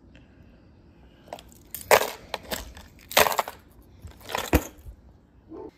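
Fishing lures and plastic tackle storage being rummaged through, rustling and clattering in a few short bursts about one and a half, three and four and a half seconds in.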